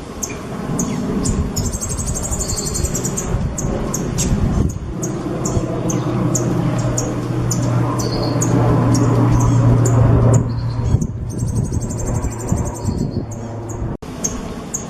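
Songbird singing: a steady run of short, sharp, high chirps broken twice by a fast rippling trill. A steady low hum runs underneath.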